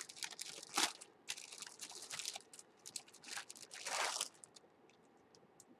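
Packaging crinkling and rustling in the hands as a boxed item is unwrapped, in uneven bursts, the loudest about a second in and around four seconds in, dying away near the end.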